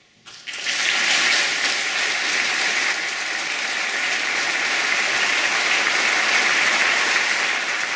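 Audience applauding, breaking out about half a second in after a brief silence and holding steady.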